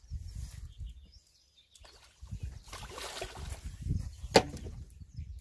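Hooked carp swirling and splashing at the surface of a pond while a landing net is pushed out to it, with a sharp knock about four seconds in and low rumbling on the microphone.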